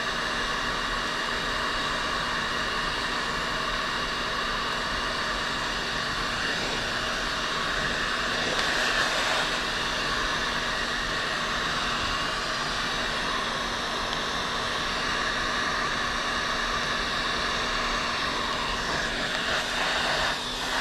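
Heat gun running steadily, blowing hot air: an even rush of air with a steady motor whine.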